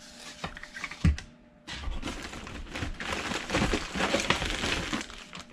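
Plastic packaging crinkling and rustling while cables and a bagged wiring harness are handled and pulled from a cardboard box, with a single knock about a second in.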